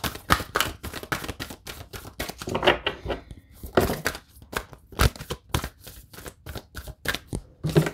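A deck of oracle cards being shuffled by hand: a quick, irregular run of card clicks and taps.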